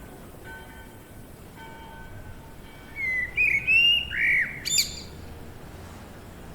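A bird calls loudly for about two seconds, starting about three seconds in: a run of chirps and gliding notes that ends in a sharp upward sweep. Faint, distant, thin bird notes and a steady outdoor hiss lie underneath.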